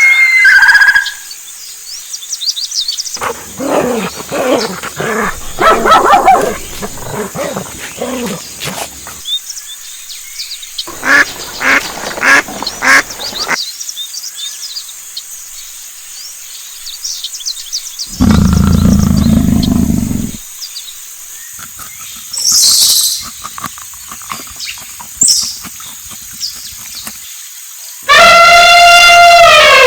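A series of different animal calls and cries, one after another with short gaps between them: a low, loud call around the middle and a long pitched call with many overtones near the end, over a steady high hiss.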